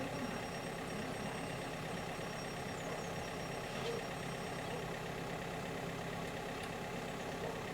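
Fire truck engine idling steadily.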